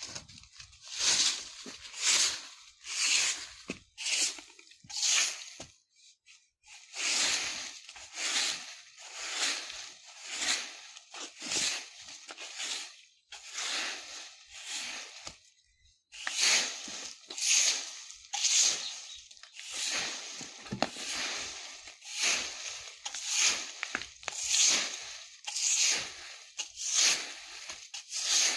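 A broom sweeping dry fallen leaves on the ground: short rustling swishes, about one stroke a second, with two brief pauses.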